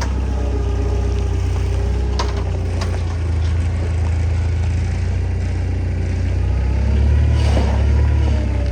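Bobcat 743B skid steer's engine running, with a few sharp metallic clanks in the first three seconds. The engine picks up and gets louder from about six and a half seconds, then settles back down near the end.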